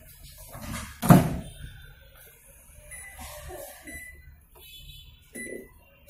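A microwave oven handled: one sharp knock about a second in, then a few faint, short high beeps.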